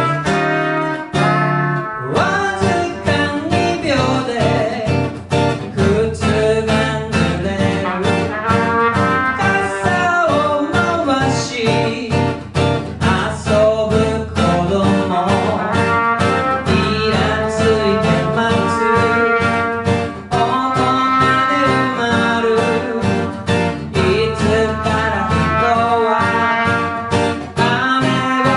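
Live band music with guitar, a steady beat and a singing voice.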